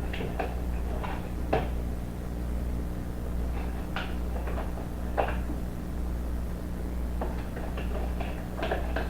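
A spoon scooping flour and knocking against its container: a handful of light, irregular clicks and scrapes over a steady low hum.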